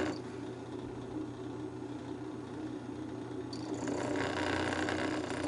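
Drill press running at about 1,100 RPM with a 120-grit sanding drum, a steady hum. About three and a half seconds in, a hiss starts as the Veritas tenon cutter's steel blade is pressed against the spinning drum to sharpen its edge.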